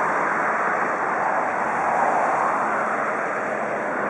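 Steady rushing hiss of steam locomotives blowing off steam, heard from a distance.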